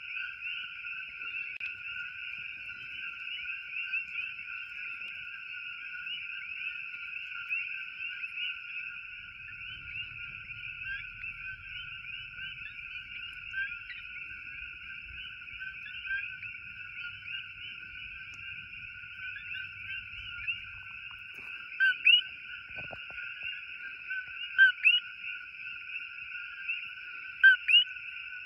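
Dense nighttime chorus of many coqui frogs giving their two-note "co-qui" call. From about two-thirds of the way in, a nearby coqui calls loudly several times, each call a lower "co" followed by a rising "qui".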